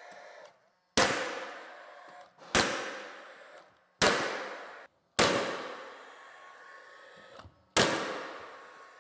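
Cordless nailer driving nails into a wooden cabinet panel: five sharp shots at uneven gaps of one to two and a half seconds, each trailing off in room echo.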